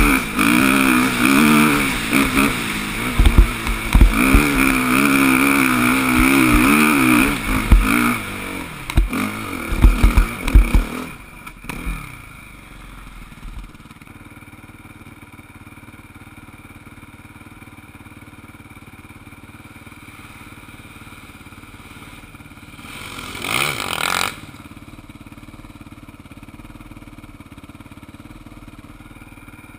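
Dirt bike engine revving up and down as it rides a rough trail, heard from on board, with sharp knocks and thuds from the bumps. About eleven seconds in the engine sound cuts off and only a faint low hum remains, broken by one brief louder noise about two-thirds of the way through.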